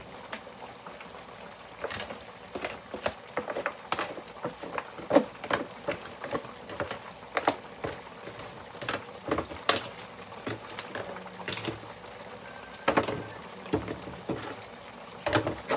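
Irregular clicks, taps and short scrapes of a utensil against an aluminium foil pan, one or two a second.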